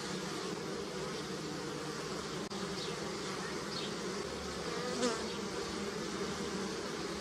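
A swarm of honey bees buzzing steadily as they forage on flowering willow. About five seconds in, one bee passes close and the buzz briefly swells and bends in pitch.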